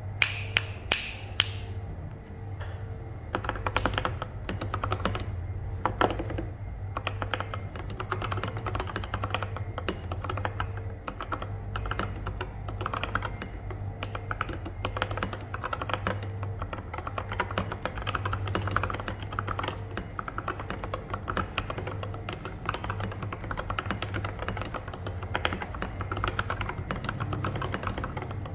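Continuous typing on a mechanical keyboard with lubed, filmed Durock Koala tactile switches and OSA-profile keycaps: a steady stream of keystrokes. A few sharper, louder clicks come in the first second or so.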